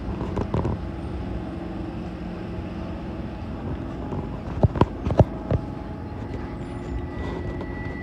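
Docklands Light Railway train drawing in and stopping at the platform: a steady electric hum with a few sharp clunks around the middle, then a steady high-pitched tone starts about six seconds in.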